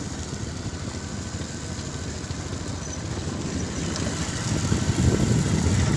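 Motorcycle running at riding speed along a road, with a rough low rumble that grows louder near the end.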